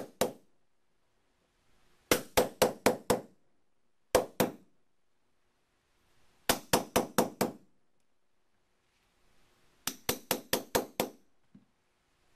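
Small hammer tapping a steel pin punch to drive the tiny pin out of the tail of a Remington 7600 bolt body. The taps come in four quick runs of about three to seven, roughly five a second, with pauses of a second or two between runs.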